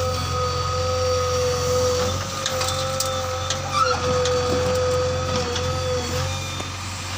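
A JCB 3DX backhoe loader's diesel engine runs steadily under a constant high whine. A few knocks and clatters come through the middle, the loudest just before halfway.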